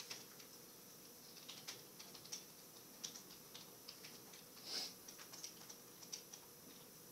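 Computer keyboard typing: faint, irregular keystrokes, with one louder clack a little under five seconds in.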